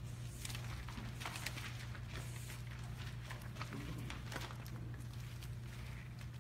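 Pages of a Bible being turned: a string of short paper rustles and light taps over a steady low electrical hum.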